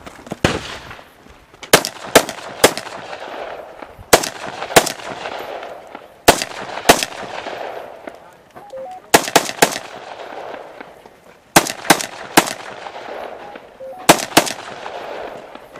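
AR-15-type rifle in .223 Remington firing fast pairs and triples of shots with pauses of a second or two between strings, each shot followed by a long rolling echo.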